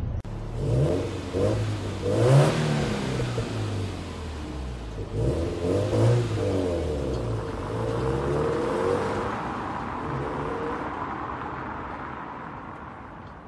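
Subaru WRX STI (VAB) with its turbocharged EJ20 flat-four engine pulling away, its revs rising and falling several times as it accelerates. The engine note fades steadily over the last few seconds as the car drives off.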